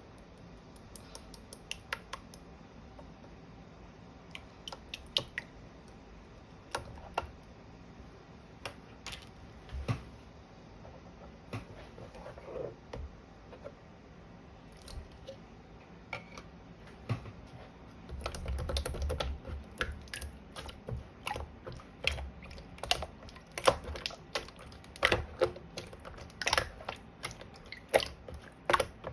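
Mint clear slime being pressed and played with by hand, giving scattered sharp clicks and pops. The clicks come much thicker from about two-thirds of the way in, with a low rumble underneath.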